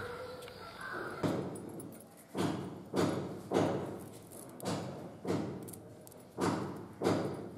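A run of sharp thuds, roughly one every half second to second, each with a short fading tail, starting about a second in.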